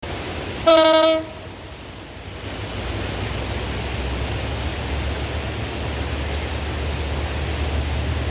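A short single blast of a diesel locomotive's horn, one steady tone about a second in, followed by a steady rushing hiss with a low rumble that slowly builds as the EMD GT42ACL-hauled train approaches.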